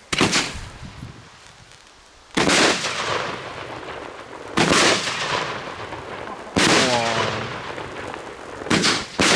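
Funke Funkenweide Violett 30 mm firework battery firing: six sharp bangs, each with a long echoing tail, mostly about two seconds apart, with the last two close together near the end.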